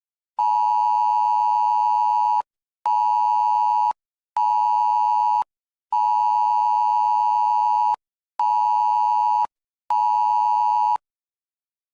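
An electronic alert tone: one steady mid-pitched beep, sounded six times in a long-short-short pattern that repeats twice. The long beeps last about two seconds, the short ones about one second, and there are half-second gaps between them.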